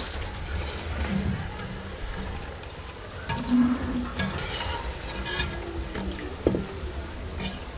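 Spinach pakoras frying in hot oil in an aluminium pot, a steady sizzle, with several knocks and scrapes of a wire skimmer against the pot as the fritters are lifted out.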